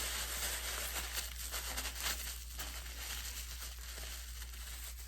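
Rustling and crinkling as items are handled, over a steady low hum.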